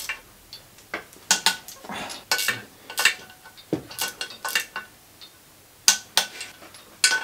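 A socket and torque wrench working the steel bolts of a clutch pressure plate while the bolts are tightened to torque: a dozen or so irregular, sharp metallic clinks and clicks with short ringing.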